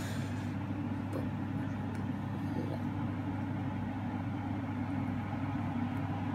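Steady low mechanical hum of a running kitchen appliance while an omelette cooks in a pan on the hob.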